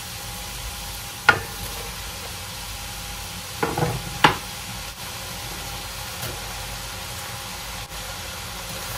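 Onions and frozen mixed vegetables sizzling steadily in a pot on a gas stove, with a sharp knock a little over a second in and a short clatter about four seconds in as chopped vegetable cubes are added to the pot.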